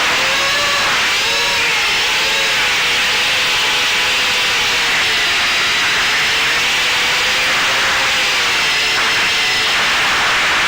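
Eachine Wizard X220 FPV quadcopter's brushless motors and propellers whining in flight. The pitch wavers up and down over a steady rush of wind and prop noise.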